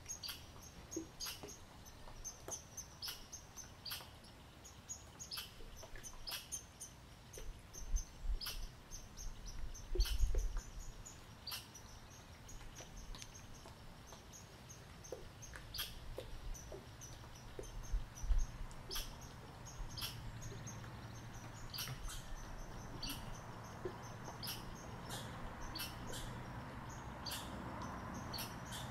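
Eastern chipmunk chipping: short, sharp, high chips repeated at an uneven pace of about one or two a second. A few dull low thumps come in between, the loudest about ten seconds in.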